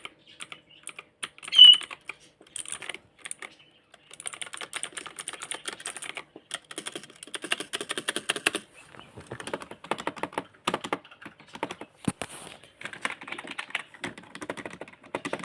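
Fast typing on a computer keyboard: rapid key clicks in runs, broken by short pauses. A brief high-pitched chirp stands out near the start and is the loudest moment.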